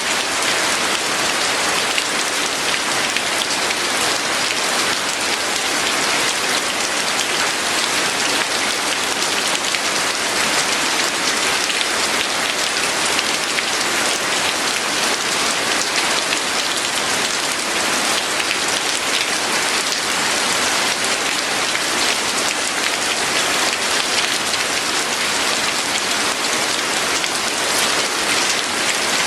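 Steady rain falling on a surface, a constant even patter of many drops with no breaks or thunder.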